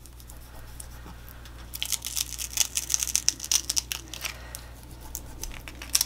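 Transfer tape carrying a gold vinyl decal being peeled off its paper backing sheet: a crackly, tearing sound in short bursts, starting about two seconds in, with another burst near the end.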